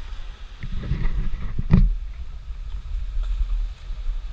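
Low rumbling wind and handling noise on a GoPro's microphone held on a selfie stick, with a few knocks and one sharp click nearly two seconds in.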